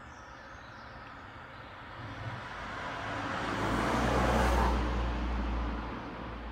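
A passing vehicle: a low rumble and rushing noise that swells to a peak about four seconds in, then fades away.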